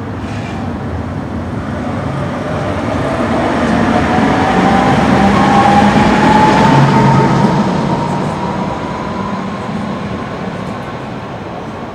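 A large vehicle passes close by in street traffic, growing louder to a peak about halfway and then fading, with a whine that rises steadily in pitch as it goes by and a low hum beneath.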